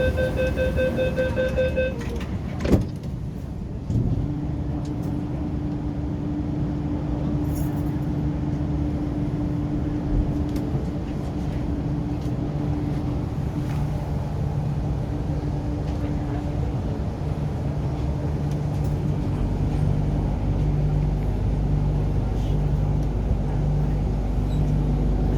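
Train door warning beeps end about two seconds in, followed by a sharp knock as the doors shut. A few seconds later the MTR Q-Train's traction motors start up with a steady hum as it pulls away, and the rumble grows louder near the end.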